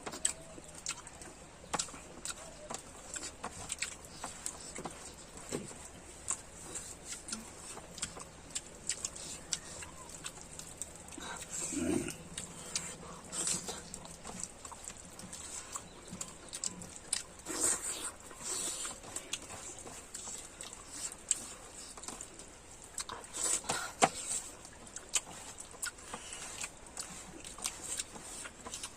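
Close-miked chewing and lip smacking of people eating boiled pork, a run of short, irregular wet clicks and smacks.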